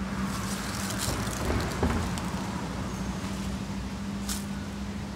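Outdoor city street ambience: a wash of distant traffic with a steady low hum under it, and a short light click about four seconds in.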